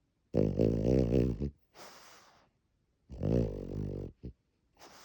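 French bulldog snoring in a regular breathing rhythm. Two loud buzzing snores, each about a second long and about three seconds apart, are each followed by a softer, breathy breath.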